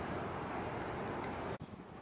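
Steady outdoor ambient noise, an even rushing hiss with no distinct events, which drops off suddenly about a second and a half in and continues quieter.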